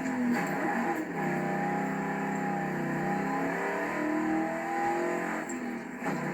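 1995 Ford Mustang GT's 5.0-litre V8 running under throttle. The engine note rises and falls with the revs, dipping about a second in and again near the end.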